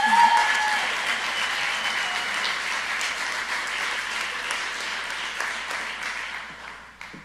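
Audience applauding, with a cheering whoop at the start; the clapping fades away near the end.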